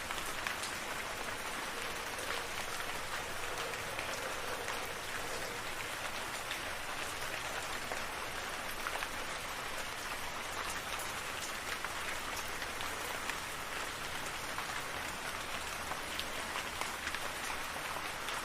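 Steady rainfall without thunder: an even hiss of rain with many fine drop ticks on a surface.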